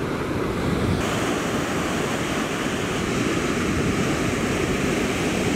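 Surf breaking and washing up a sandy beach: a steady rush of waves, getting a little brighter about a second in.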